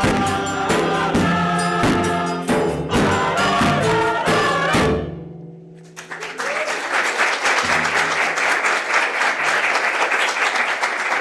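A choir singing with instrumental accompaniment and percussive strokes, with the piece ending about five seconds in. After a short lull, an audience applauds.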